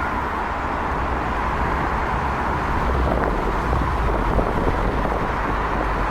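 Strong wind buffeting the microphone: a steady rumble with an unsteady low end and a rushing noise above it.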